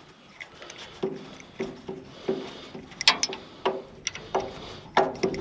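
Repeated knocking on metal, about one knock every two-thirds of a second, each with a short ring.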